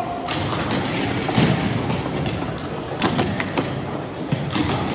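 Plastic speed-stacking cups clicking and clattering in quick, irregular taps over the steady background noise of a busy sports hall.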